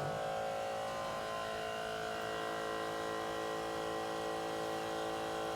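A small electric motor running steadily, a constant whine of several held tones.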